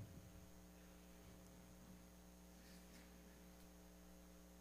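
Near silence: a steady low electrical hum, with a brief low thump right at the start.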